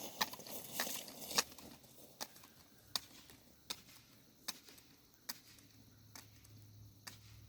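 A series of short, sharp clicks: a few in the first second and a half, then a steady run about every three quarters of a second.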